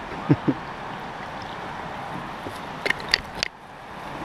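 Plastic sit-on-top kayak and paddle: two dull knocks near the start, then a quick cluster of sharp clacks about three seconds in as the paddle is handled against the hull, over a steady background hiss of water.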